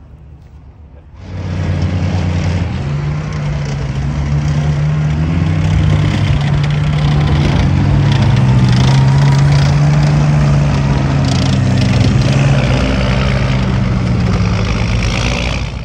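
Alvis CVR(T) light tracked vehicles of the Scorpion family driving past, their engines running loud and steady, with small shifts in pitch. The sound starts abruptly about a second in.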